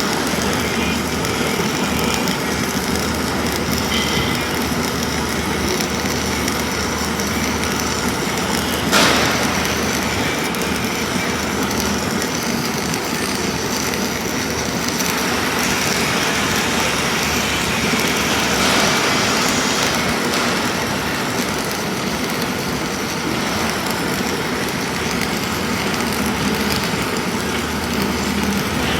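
Self-shielded flux-cored arc welding with Lincoln Innershield NR305 wire, a steady crackle that holds at an even level, over a steady low hum. One sharp knock about nine seconds in.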